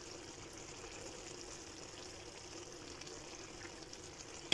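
Faint, steady hiss and bubbling of a chicken tagine simmering in its liquid in an earthenware tagine dish on the hob.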